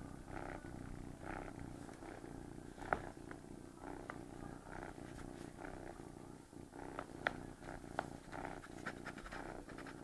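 Domestic cat purring steadily, swelling and fading in a regular rhythm about once a second, with a few small sharp clicks.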